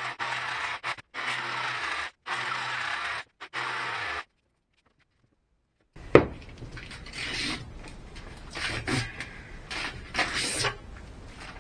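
Workshop handling noise. About four seconds of choppy scraping and rubbing bursts over a low hum cut off into dead silence. Then a sharp knock and a run of irregular rubbing and scraping, as the acrylic sheet and fridge-door panel are handled.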